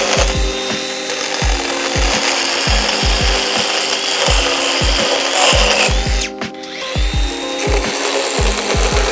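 Cordless Makita brushless chainsaw cutting through small timber, with a steady cutting noise. A heavy, regular beat of backing music runs with it, and both dip briefly about six seconds in.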